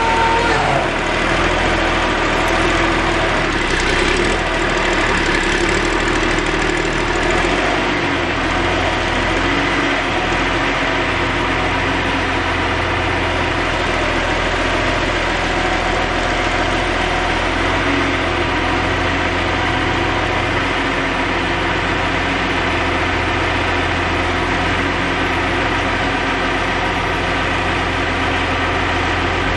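John Deere backhoe's diesel engine running steadily at low speed; its note shifts a little in the first several seconds, then holds even.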